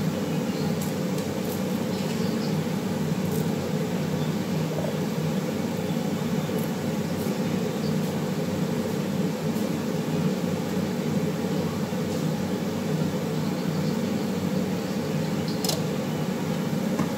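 Kitchen extractor hood fan running with a steady hum that does not change, and a few light clicks now and then.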